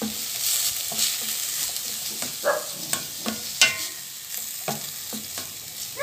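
Chopped onion and ginger sizzling in hot oil in a stainless steel pot while a spatula stirs and scrapes them, knocking against the pot about twice a second. One sharper, ringing knock comes about three and a half seconds in.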